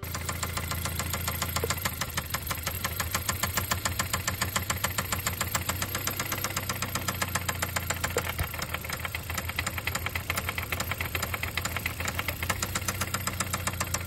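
Car engine running steadily with a rapid, even knock from inside it, the kind of noise a mechanic films to show a fault.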